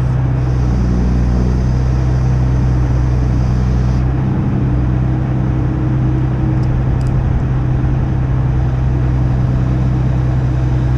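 Crane engine running steadily, a low, even drone, as the boom holds a marine engine over the boat; a faint hiss sits on top for the first few seconds.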